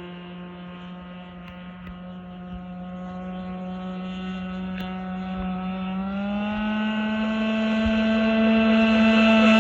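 Enforcer Mega G RC speedboat's engine running steadily on the water and getting louder as it comes closer. About six seconds in, its pitch rises slightly as the throttle opens.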